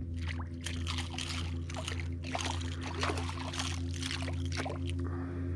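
Water splashing in quick, irregular bursts as a small hooked fish thrashes at the surface beside a kayak, over a steady low drone.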